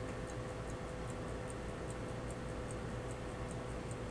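Pocket watch movement ticking, an even run of light, sharp ticks several times a second.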